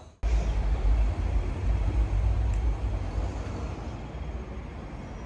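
Music cuts off at the start, then outdoor street background sets in: traffic noise with a low, uneven rumble.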